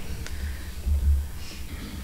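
A pause in a talk picked up by a lectern microphone: a steady low hum, with a brief click shortly after the start and a soft low thump about a second in.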